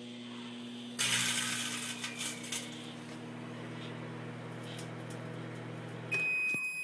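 Microwave oven running with a steady hum while a chip bag heats inside it. About a second in there is a burst of crackling and crinkling from the bag as it puffs and shrinks, lasting about a second and a half. Near the end the hum stops and the end-of-cycle beep sounds as one steady high tone.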